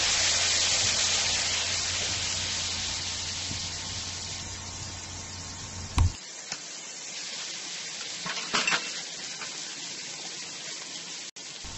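Soy sauce sizzling as it hits a hot pan of sautéed onions, garlic and carrots, the sizzle fading gradually. There is a sharp click about halfway through and a brief faint scrape of stirring a little later.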